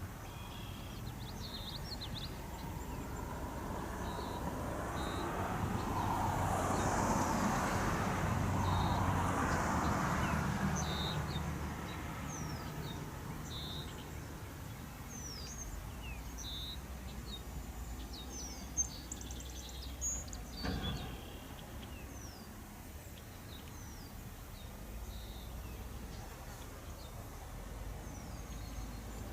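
A vehicle passes by as a hiss that swells for several seconds and then fades, while small birds chirp in short, repeated notes. There is a sharp click a little past halfway.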